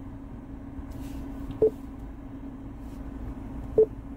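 A car's interior warning chime giving short single-pitched beeps about every two seconds, twice here, over a steady low hum.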